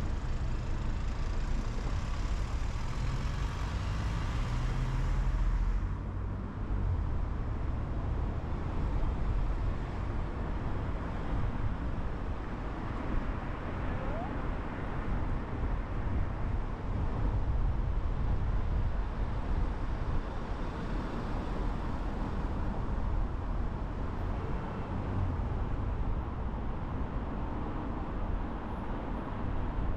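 Car driving in city traffic: a steady low rumble of engine and road noise. The tyre hiss drops off abruptly about six seconds in.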